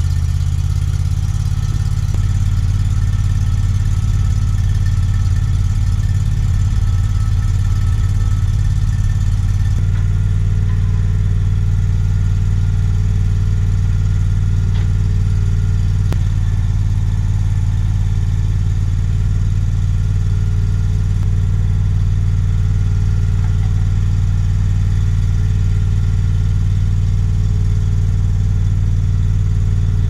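A TimberKing portable sawmill's engine idling steadily, with no log being cut. About ten seconds in, its note shifts slightly and then holds steady again.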